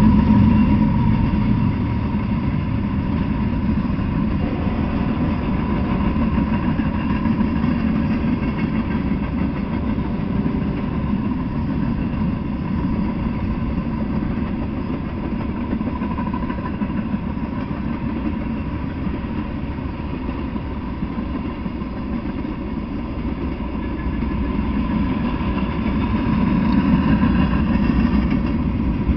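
Freight train rolling past at steady speed: the continuous low rumble of steel coil cars and covered hopper cars on the rails, a little louder near the end.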